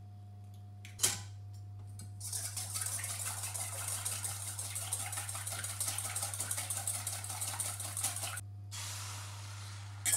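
A sharp click about a second in, then eggs beaten briskly with a wire whisk in a metal mixing bowl: a fast, steady clatter for about six seconds. A smoother hiss follows, and a sharp knock comes near the end.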